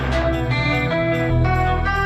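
Instrumental music track: held melody notes that change every half second or so over a steady deep bass, with no singing.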